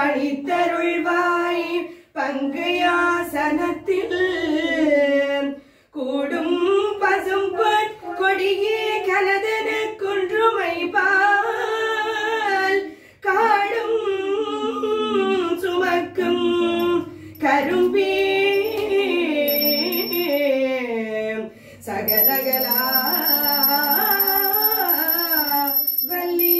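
A woman's voice singing a devotional hymn unaccompanied, in long gliding phrases with short breaths between them. A small hand bell starts ringing steadily near the end.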